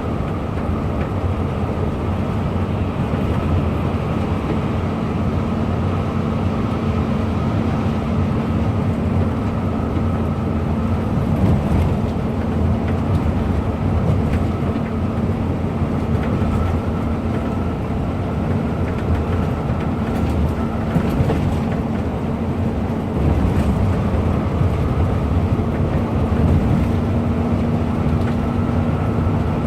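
Bus engine running under way with steady road noise; it steps up a little in loudness about three-quarters of the way through.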